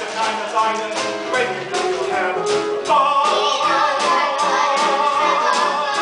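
Musical-theatre song: singers over a live or backing band with a steady beat, rising about halfway through into a long held note.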